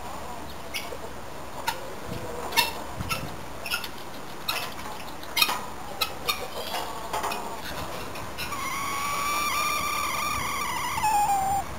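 Short, scattered calls from farmyard fowl, then a rooster crowing once: one long call of about three seconds that holds steady and drops in pitch at the end.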